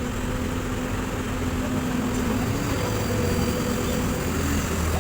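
Diesel engine of a Kobelco SK200 hydraulic excavator running steadily with an even drone.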